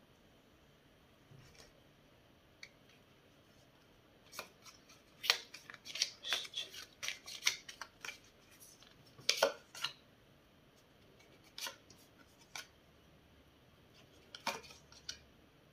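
A deck of tarot cards being handled. A flurry of crisp card snaps and flicks lasts several seconds in the middle, then a few single taps follow as cards are laid down on a wooden table.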